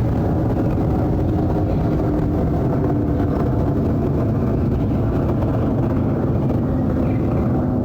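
Jet airliner flying overhead: loud, steady engine noise with a low hum that slowly falls in pitch.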